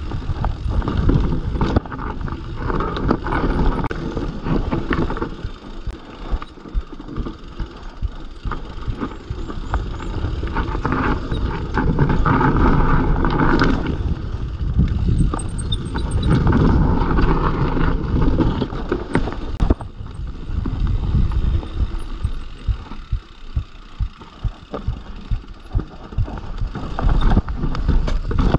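Mountain bike riding down a rough dirt and rock trail: tyres crunching over the ground, the bike rattling and knocking over bumps in quick irregular hits, with wind rumbling on the microphone.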